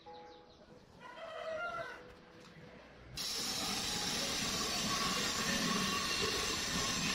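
Angle grinder with a cutting disc cutting into the steel top of an iron drum. It starts abruptly about three seconds in as a loud, steady grinding hiss with a ringing whine.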